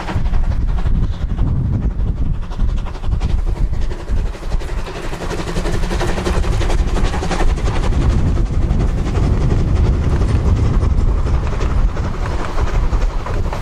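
A 750 mm narrow-gauge steam tank locomotive passing close by under steam, its exhaust beats and running gear mixed with the rumble of its coaches rolling over the rails. The sound is loud and steady throughout.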